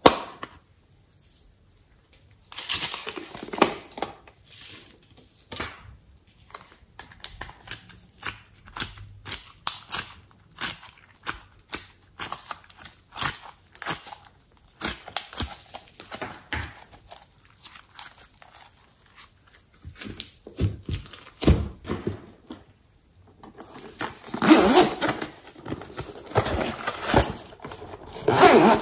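Hands handling small plastic containers and toys: a steady run of clicks, taps and crinkles. Near the end comes a longer stretch of scraping as a zippered pencil case is unzipped.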